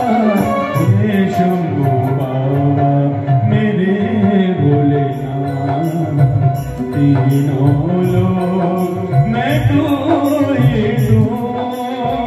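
Live Hindu devotional bhajan to Shiva: a singer's voice amplified through a PA system over keyboard and drum accompaniment, with jingling percussion keeping a steady beat.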